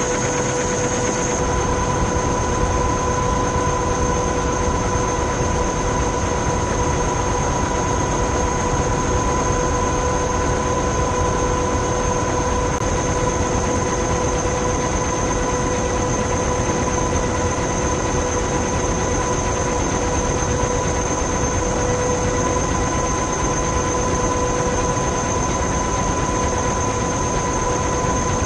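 Steady aircraft engine noise: an even rushing with a constant whine held at a few fixed pitches.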